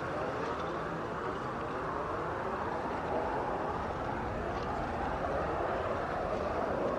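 Ambient sound-design soundtrack: a steady, dense noisy drone with a faint wavering texture and no clear melody, with a couple of faint high ticks.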